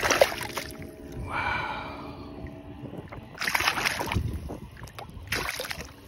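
Water splashing and sloshing as a bass is held by the lip at the surface and released, in a few short splashes: near the start, about three and a half seconds in, and again about five and a half seconds in.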